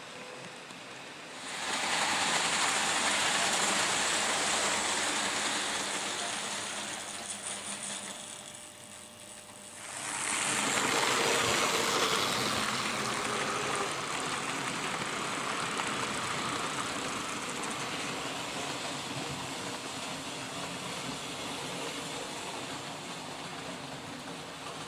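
Vintage Märklin tinplate model train running on its track, a steady rushing clatter of wheels and motor. It is loud for several seconds while the coaches pass close, eases off, then rises again about ten seconds in as the SK 800 locomotive comes head-on and slowly fades.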